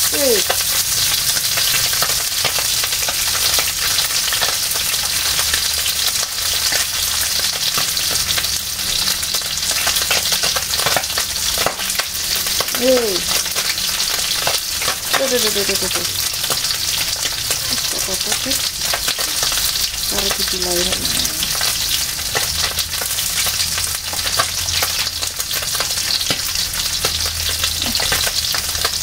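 Pieces of pindang tongkol (salted, boiled mackerel tuna) being shallow-fried in oil in an old Teflon pan: a steady hissing sizzle, dotted with small pops and clicks.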